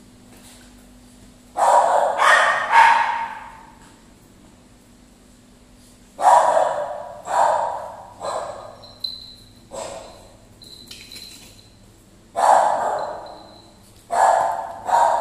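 Dog barking in bouts of several quick barks, with single barks between the bouts and short quiet gaps, while the dogs play.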